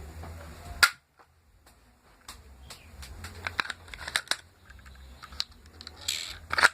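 Sharp plastic clicks and knocks from a homemade PVC toy pistol being handled and worked, with a loud snap about a second in, a run of smaller clicks in the middle and another loud snap near the end.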